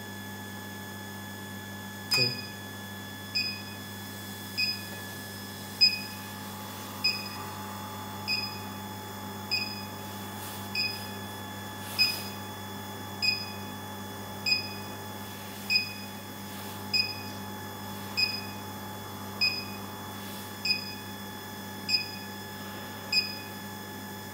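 Induction heater beeping steadily, a short high beep about every 1.2 seconds starting about two seconds in, over a constant electrical hum. The beeping signals that the heater is switched on and heating, here with its work coil bringing a brass mixer part to red heat for brazing.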